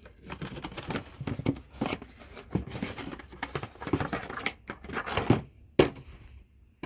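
Plastic packaging being crinkled and torn open by hand, in irregular rustling bursts, with one sharp snap near the end.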